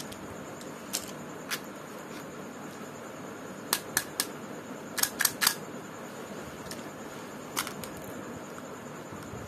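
Sharp clicks and taps of hard plastic candy containers being handled, one at a time and in quick runs of two or three, over a steady low hiss.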